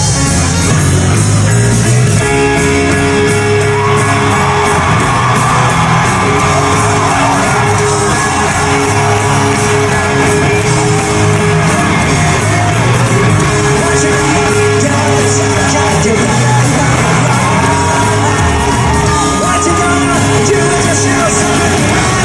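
Live rock band playing with singing, and an arena crowd yelling and cheering along, in a large echoing hall.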